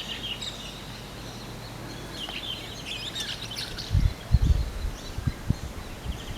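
Small birds chirping in short high calls, most busily a little past the middle. From about four seconds in, irregular low rumbles come in, louder than the birdsong.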